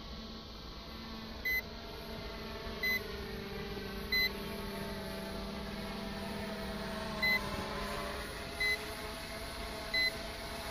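Short high beeps from the Hubsan FPV1 transmitter, six in all, mostly about a second and a half apart with a longer gap in the middle: its alert notifications while the H109S quadcopter flies back on return-to-home. Underneath runs a faint steady hum whose pitch drifts slightly, from the quadcopter's motors overhead.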